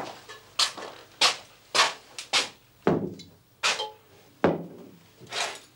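Heavy boots stepping on a wooden floor, one knock about every half second to second, a few landing with a deeper thud.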